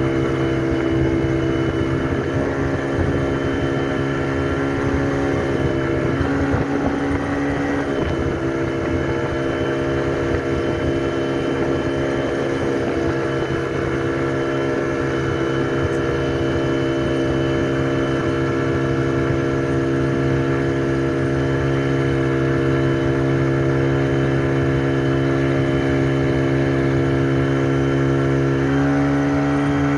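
Speedboat engine running steadily at speed while towing, over a rush of wind and water. Its note shifts briefly about six seconds in and steps up near the end.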